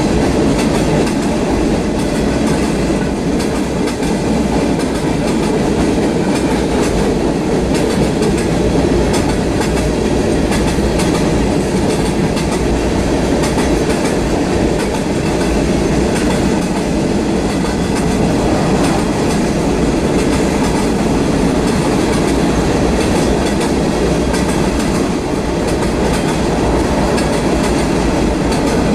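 Freight train cars rolling past close by: a steady rumble of steel wheels on rail with a light clickety-clack.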